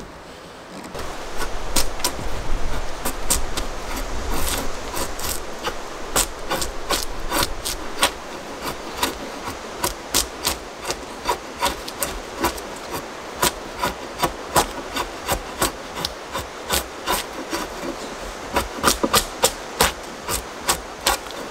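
A hand tool working the end of a wooden plank in repeated back-and-forth strokes. The strokes are uneven at first, then settle to a steady rhythm of about two a second.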